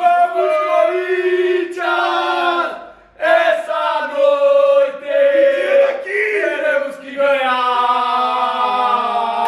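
Men's voices chanting and singing loudly in celebration, with long drawn-out notes and a brief break about three seconds in.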